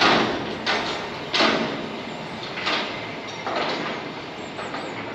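A train passing through the station, a rushing noise that surges roughly once a second as its wheels and carriages go by.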